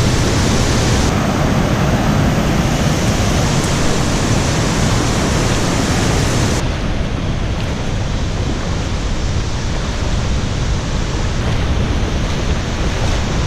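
Steady loud rushing of a large waterfall, Mooney Falls, pouring and crashing. About halfway through the highest hiss drops away, leaving a duller rush.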